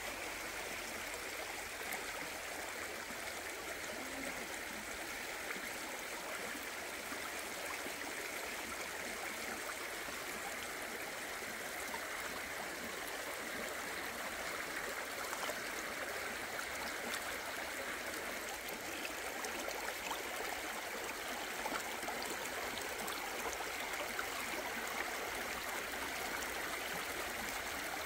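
Shallow rocky stream running steadily, a continuous babble of water over stones.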